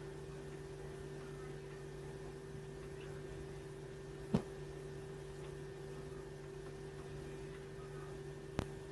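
Steady low hum with faint hiss, broken by a sharp click about four seconds in and another near the end.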